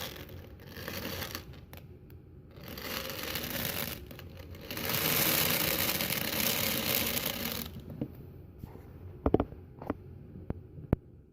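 Plastic airsoft BBs poured into a bottle in three pours, each a dense rattling stream of small pellets. A few separate clicks follow near the end.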